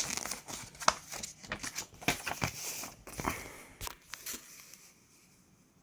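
Paper instruction manual being handled, its pages unfolded and flipped with a run of crinkles and rustles that die away about a second before the end.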